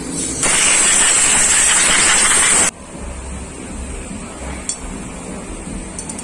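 A loud hissing blast of cleaning spray or air into a disassembled motorcycle carburetor, lasting about two seconds and cutting off suddenly. Afterwards a low hum and a single click.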